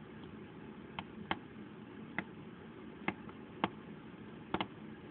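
About seven sharp clicks at irregular intervals, the last two close together near the end, over a steady low hum.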